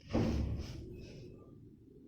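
A single dull thump a moment in, fading over about a second.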